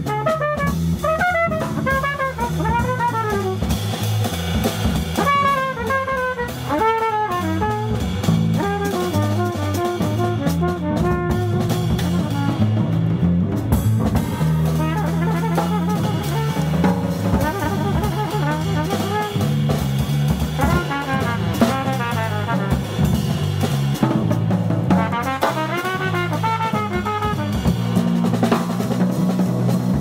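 Live jazz: a Monette cornet playing quick melodic runs that rise and fall, over electric bass and a drum kit.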